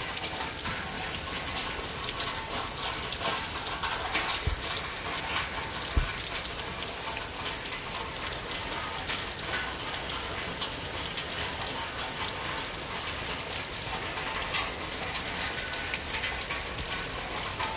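Steady rain falling on a garden and a wet wooden deck: a dense crackle of drops. Two soft low bumps come at about four and a half and six seconds in.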